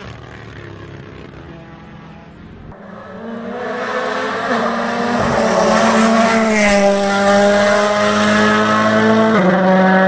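Toyota Yaris Hybrid WRC rally car's turbocharged 1.6-litre four-cylinder engine at full throttle. It is faint at first and grows loud over the next few seconds as the car comes close. Its pitch steps with each gear change.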